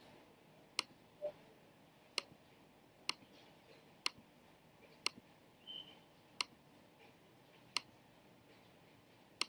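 Computer mouse clicking: eight faint single clicks, roughly one a second, as structures are selected in an on-screen anatomy app.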